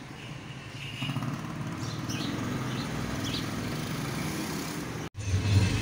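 Street traffic, with a small motorcycle engine running as it rides past, and a few faint high chirps. Just after five seconds the sound cuts to a louder, steady low engine drone.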